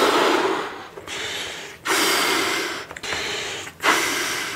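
A man blowing up a pearlescent latex balloon by mouth: three long, hard blows of breath into it, with a quick gasping inhale before each of the later two. These balloons are really tough to inflate.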